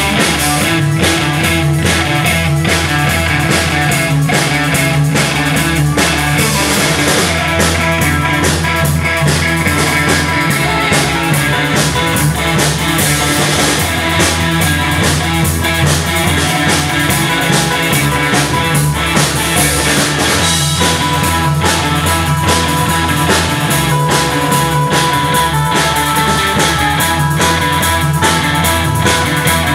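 Live rock band playing loud, driving music: distorted electric guitars strumming over drums and two bass guitars, the bass holding long low notes that change every few seconds.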